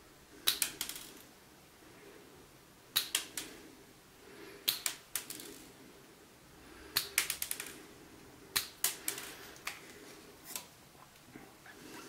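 Multitool pliers' wire cutter snipping thin iron wire: short clusters of sharp metallic clicks, about seven times.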